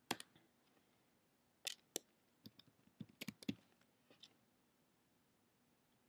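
Faint, scattered keystrokes on a computer keyboard: about a dozen short clicks in irregular groups.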